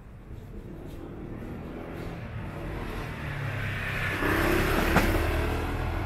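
A motor vehicle approaching and passing close by: its engine and tyre noise swell over about four seconds to a peak near the end. A sharp knock comes at the loudest moment.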